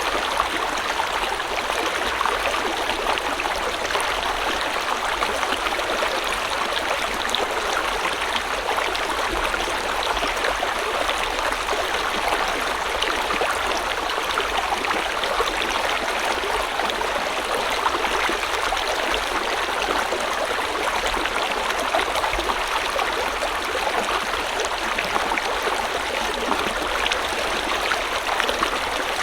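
River water flowing over rocks in a steady, even rush.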